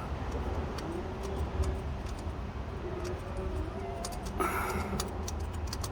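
Scattered light metallic clicks and taps of hand tools and loosened fasteners during alternator removal, over a steady low hum.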